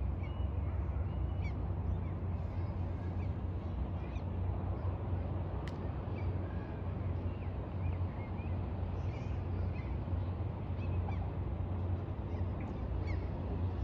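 Birds calling with many short chirps throughout, over a steady low rumble. There is one sharp click a little before the middle.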